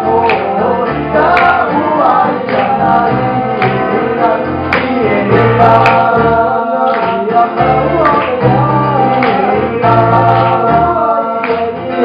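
Live song: a male lead vocal with a second male voice singing along, over strummed acoustic guitar.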